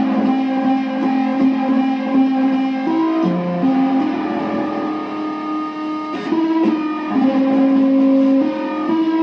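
Electric kalimba plucked and run through guitar effects pedals into amplifiers, its notes stretched into long sustained, overtone-rich tones. The notes change pitch every second or so in a slow melody, with a short lower note about three seconds in.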